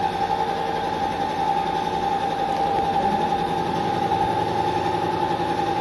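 The motor of a paint-spraying rig running with a steady, even hum; the spray gun is not firing.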